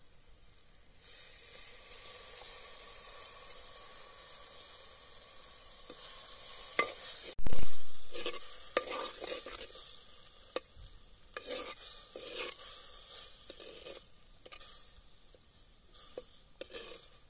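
Yogurt poured onto hot spiced tempering sizzles with a steady hiss. About six seconds in, a steel ladle starts stirring and scraping it around the pot, with scattered clinks. A single loud low thump comes about seven and a half seconds in.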